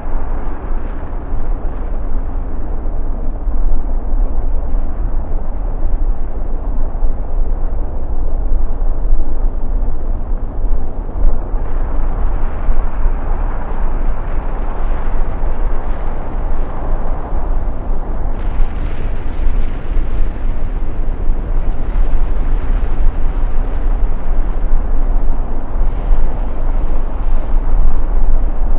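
Wind buffeting the microphone outdoors: a loud, unsteady deep rumble with a rushing hiss over it.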